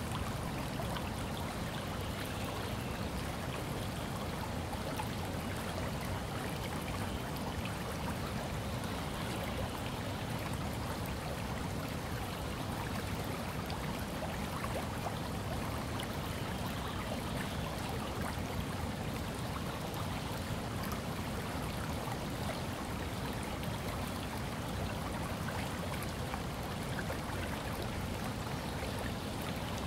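A river running over a line of rapids, a steady rushing of water.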